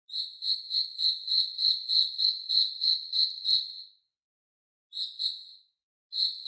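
Cricket chirping in a steady run of high chirps, about three a second, then stopping; after a pause it gives two short bursts of a few chirps each.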